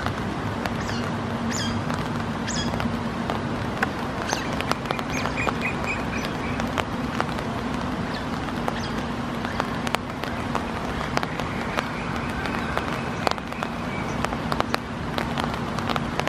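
Heavy rain falling on a pond's surface, with short high-pitched chirps from smooth-coated otters calling, including a quick run of about five chirps around five seconds in. A steady low hum runs underneath.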